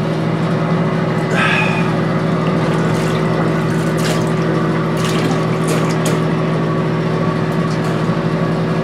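A few small drips and splashes into toilet bowl water as a drunk man hangs his head over the bowl to vomit, over a steady loud hum.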